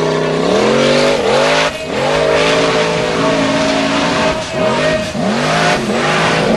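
Formula Offroad buggy's engine revving hard on a steep dirt climb, the revs rising and dropping again and again as the spinning tyres dig and catch.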